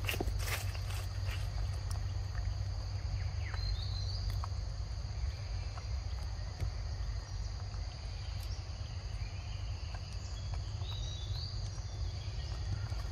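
Forest ambience: a steady high insect drone over a constant low rumble, with a few short high chirps about four seconds in and again near the end, and a few faint clicks.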